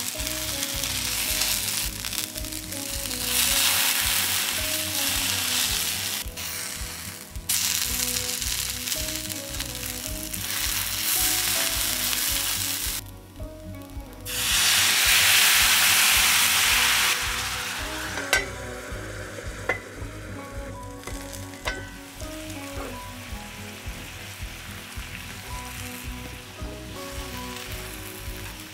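Chicken tsukune frying in oil in a cast-iron skillet, with a steady sizzle. About halfway through, the sizzle jumps to its loudest for a few seconds as the soy-sauce tare is poured into the hot pan, then settles to a quieter sizzle with a few light clicks.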